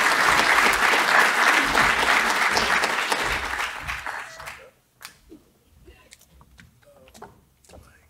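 Audience applauding, the clapping thinning out and stopping about four and a half seconds in; after that only faint shuffles and small knocks.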